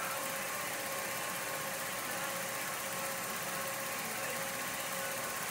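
Film projector running: a steady mechanical whir with a faint constant hum.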